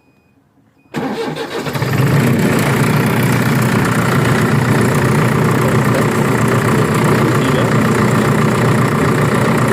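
Manitou machine's engine starting: quiet for about a second, a brief uneven cranking and catch, then running steadily at idle.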